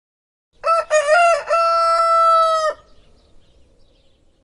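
A rooster crowing once: a few short choppy notes, then one long held note that cuts off abruptly.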